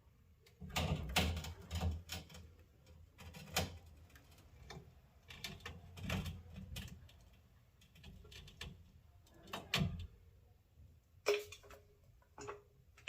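Metal suspension hardware being handled: irregular knocks and clatter, then two sharp, ringing metallic clinks near the end.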